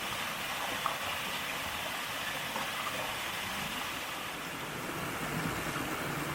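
Mountain valley stream rushing steadily over rocks, an even hiss of flowing water.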